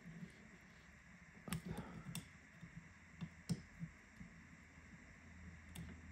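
About five faint, scattered plastic clicks as a replacement screen is pressed and snapped onto a Samsung Galaxy A23 5G's frame.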